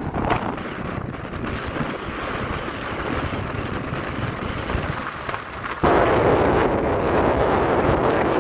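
Ocean waves and surf rushing, with wind buffeting the microphone. Near the end the sound cuts abruptly to a louder, fuller rush.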